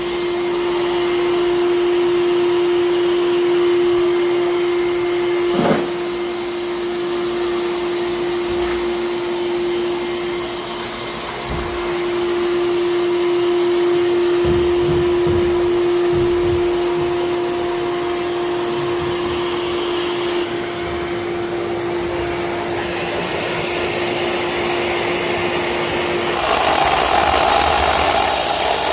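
A small electric motor running steadily with a constant hum over a rushing noise. Near the end it stops and a louder, rougher machine noise starts.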